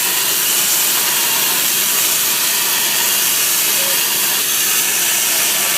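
Chainsaw cutting steadily into a block of ice, a continuous rushing hiss of blade and spraying ice chips.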